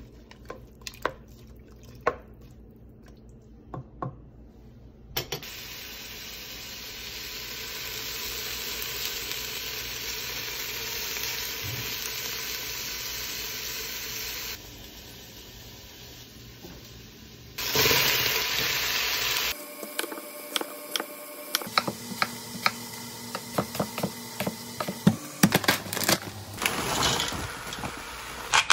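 Cooking sounds in a stainless steel pot. First a wooden spoon knocks and scrapes as it stirs chopped vegetables, then sliced onion and ginger sizzle steadily in the pot. Near the end comes a long run of quick clicks and clatter, as diced squash is tipped into the pot.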